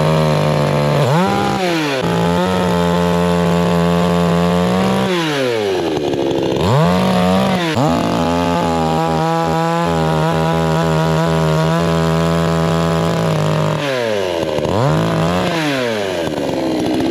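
Two-stroke chainsaw running at high revs while cutting wood, held steady for several seconds at a time. Three times it drops in pitch as the throttle eases off, then climbs back up to full speed.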